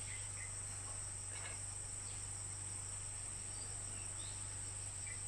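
Insects chirring steadily in one continuous high-pitched tone, over a faint low hum.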